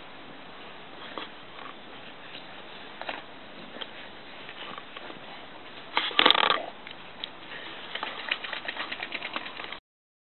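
Clumber spaniel rolling and rubbing its body and face on grass: scattered small clicks, a loud scuffling burst about six seconds in, then a quick run of ticks near the end.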